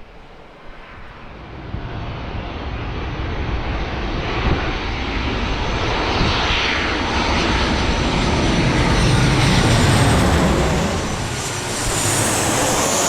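Jet airliner's engines passing close on landing approach: a rushing engine noise that swells from about two seconds in to a peak near the end, with a high whine rising as it comes by.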